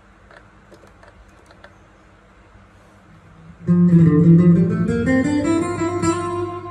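Stratocaster electric guitar played through a Zoom GFX-8 multi-effects unit. There are a few faint clicks from the unit's controls at first, then about halfway through a loud note rings out and the notes climb in pitch before holding and ringing.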